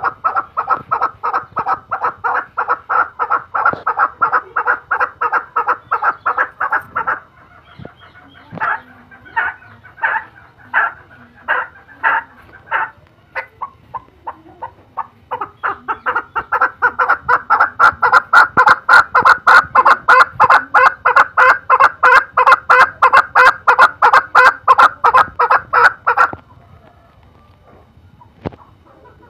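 Male chukar partridge calling: a long fast series of repeated clucking notes, then a few slower, spaced notes. After a short pause it builds into a second long fast series that stops a few seconds before the end.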